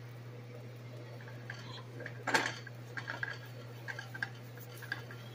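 Light clinks and taps of a utensil against a frying pan as an omelette is worked in it, with one louder clank a little after two seconds in.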